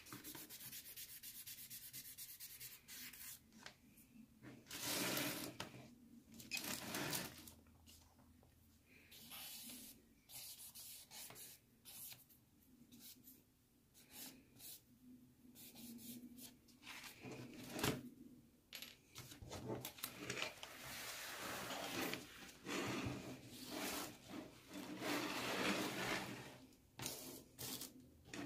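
Charcoal stick scraping and rubbing across sketchbook paper in irregular strokes, busier a few seconds in and through much of the second half.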